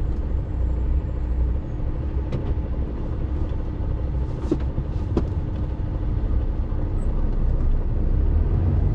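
Cab of a class one HGV, an articulated lorry, with its diesel engine running as a steady low rumble while it creeps along in slow traffic, a faint steady hum over it. Three short light clicks from the cab come about two, four and a half and five seconds in.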